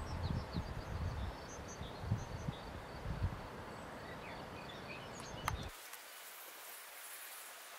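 Wind gusting against the microphone, with small birds chirping faintly. About three-quarters of the way through, a click and then an abrupt cut leave only a steady faint hiss.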